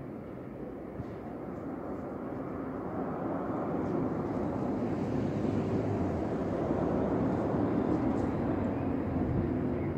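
Distant engine rumble, steady and without a clear pitch, growing gradually louder over several seconds.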